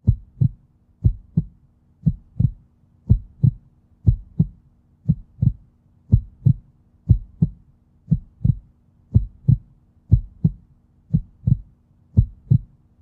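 Heartbeat sound effect: a low double thump, lub-dub, repeating about once a second over a faint steady hum.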